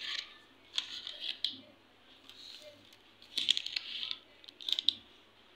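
Plastic food sachets and a bagged pack of burger buns rustling and crinkling as they are handled, in several short bursts.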